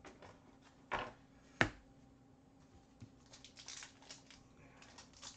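Hockey trading cards and a foil card pack being handled by hand: two sharp taps about a second and a second and a half in, then light crinkling of the pack wrapper a little past the middle.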